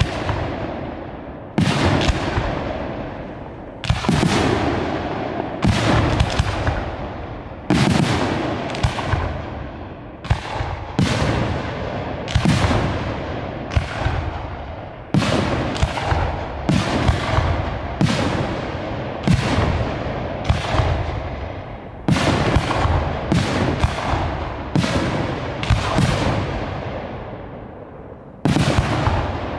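Professional display fireworks (category F4 aerial shells and cakes) going off in a steady sequence: a loud bang every second or two, each followed by a long, echoing decay.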